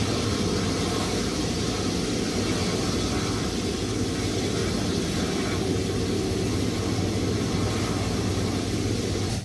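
Airbus A330 airliner's twin jet engines running steadily as it taxis slowly: an even rushing noise over a low hum.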